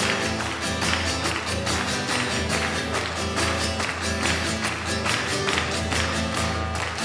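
Acoustic guitar strummed in a steady rhythm, an instrumental passage of a song with no vocals.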